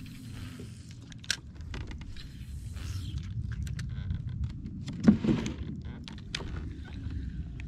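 Scattered clicks and light rattles of a fishing rod, reel and tackle being handled by hand, with one louder knock about five seconds in, over a low steady rumble.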